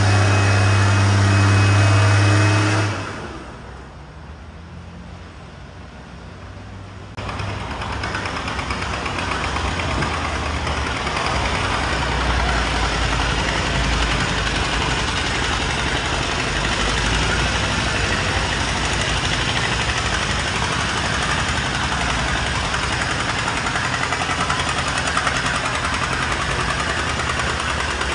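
Antique tractor engines working under load against a pulling sled. The first holds a loud, steady note and drops away sharply about three seconds in. A few seconds later an antique John Deere tractor's engine comes in, running steadily under load to the end.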